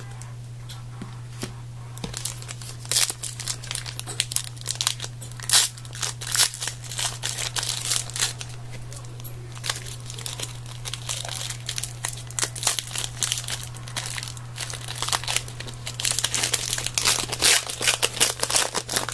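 Hockey card pack wrapper crinkling and tearing as it is opened, in quick irregular crackles that come in clusters, over a steady low hum.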